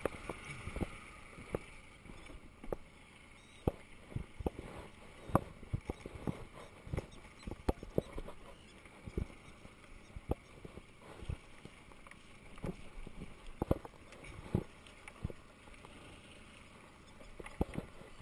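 A fishing net being hauled by hand over the side of a small boat: irregular knocks as the net's floats and line strike the gunwale, over a low steady hiss of water.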